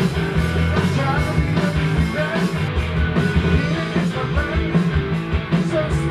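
Rock band playing: electric guitar, bass and drums keeping a steady beat, with a voice singing.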